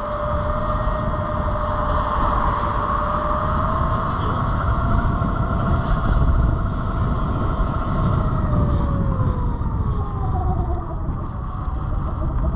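Sur Ron Light Bee X electric dirt bike's 60V motor whining steadily while riding, its pitch falling after about eight seconds as the bike slows, over road and wind noise.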